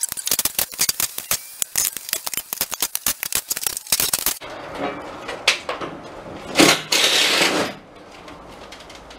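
Rapid run of sharp metallic clicks for about four seconds as a tool is worked. Then comes scraping and rustling, with a loud burst about seven seconds in.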